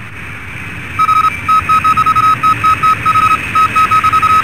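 Intro sound effect of an incoming radio transmission: steady static hiss, then from about a second in a rapid, irregular string of short and long electronic beeps at one pitch, like a Morse-code or data signal announcing a message received.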